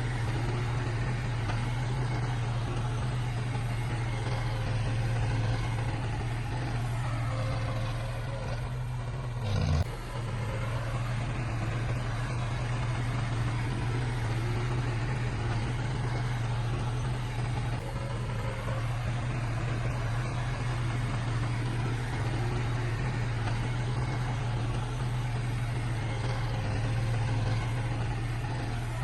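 Heavy diesel engine of earthmoving machinery running steadily under a deep, even drone, with a brief sudden break about ten seconds in.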